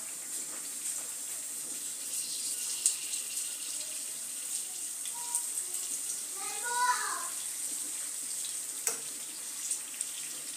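Smokie sausages frying in shallow oil in a pan, a steady sizzle, with a few sharp clicks of a metal fork against the pan as they are turned. A brief wavering pitched sound about six and a half seconds in.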